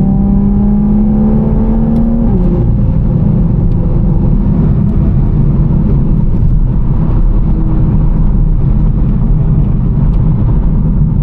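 Toyota A90 Supra driving: a steady engine note that drops in pitch about two seconds in, then a lower engine drone with tyre and road rumble.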